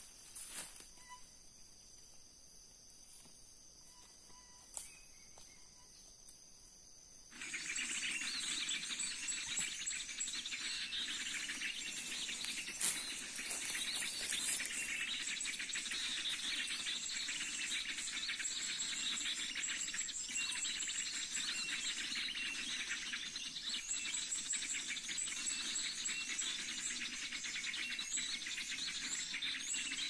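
Dense chorus of many small birds chirping and trilling, starting abruptly about seven seconds in after a quiet stretch with a faint steady high hum. This is a bird-lure recording played from an MP3 speaker to draw small songbirds to glue sticks.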